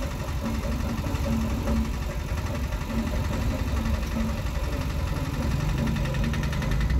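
Vehicle engine idling steadily close by in stopped traffic, a low, even putter.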